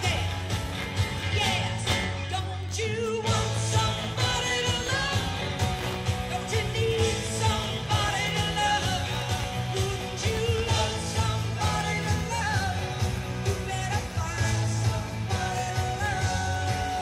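Live rock band playing: electric guitar, bass and drums with a woman singing lead, ending on a long held note.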